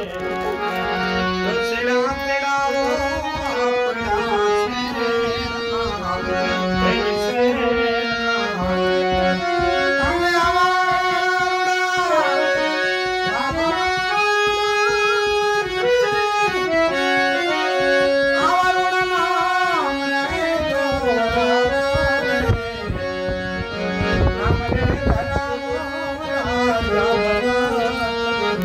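Hand-pumped harmonium playing a melody in steady held reed notes, with a man singing along in long, gliding phrases.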